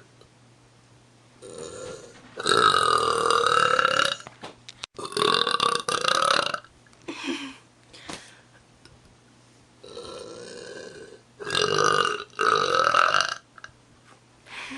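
A woman burping deliberately: a series of long, loud burps, with four big ones and a few shorter, softer ones between them.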